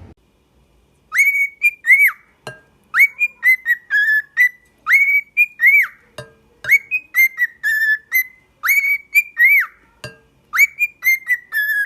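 Whistling: a repeated little tune of high, clear notes, several swooping up and back down, in short phrases with brief pauses between them.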